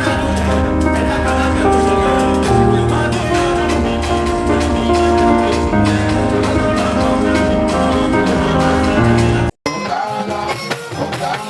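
Music with sustained notes over a pulsing bass beat. About nine and a half seconds in it breaks off for a moment and switches to a different passage with lighter bass.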